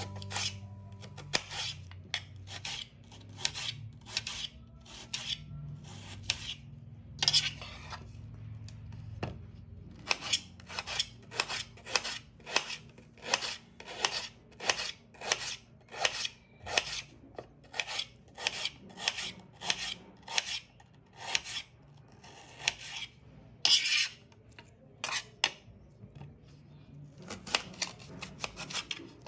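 Small paring knife slicing through a red onion on a ceramic plate: short crisp cuts in a steady run of about two a second, the blade meeting the plate at each stroke.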